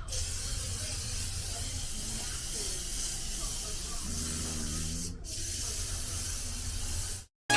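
Aerosol can of Lysol disinfectant spray hissing in a long continuous spray of about five seconds, then, after a brief pause, a second spray of about two seconds that cuts off suddenly.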